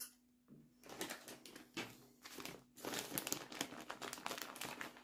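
Plastic bag of grated cheese crinkling as it is picked up and handled. The rustling comes in irregular bursts from about a second in, after a short click at the start.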